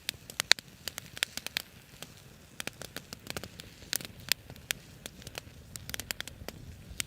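Campfire coals crackling, with irregular sharp pops over a faint hiss.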